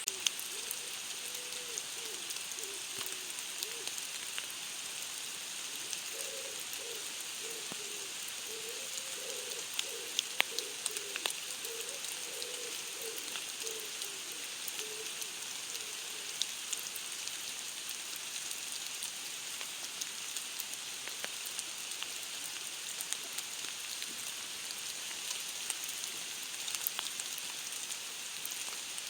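Steady rain falling on a surface: an even hiss with scattered sharp drop ticks.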